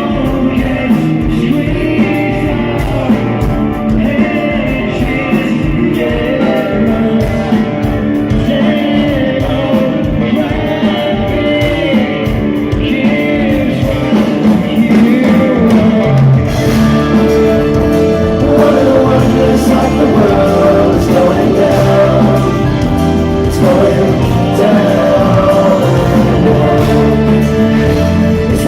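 Rock band playing, with electric guitar, bass and drums and some singing; the band fills out and gets fuller about halfway through.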